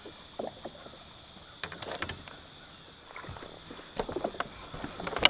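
Scattered splashes and knocks of a Hobie Mirage Outback kayak being handled in shallow water, busier and louder near the end, over a steady high drone of insects.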